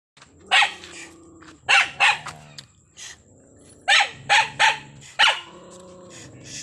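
A dog barking angrily in sharp, irregular bursts, about seven loud barks, with a low growl held between them.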